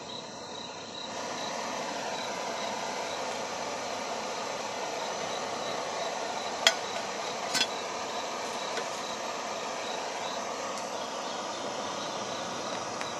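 Steady rain falling on a tarp shelter, with two sharp taps of drips about halfway through. A faint, regular, high-pitched chirping runs under it.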